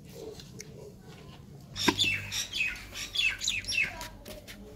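A small bird calling: a quick run of high, falling chirps starting about two seconds in and lasting about two seconds. A few sharp clicks come from a knife cutting raw turnip by hand.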